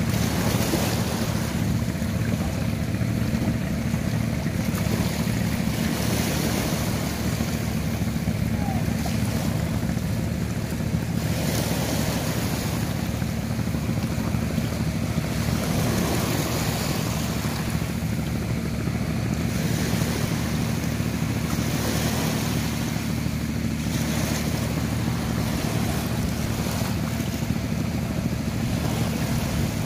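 Small waves washing up on a sandy shore, swelling every few seconds, over a steady low hum.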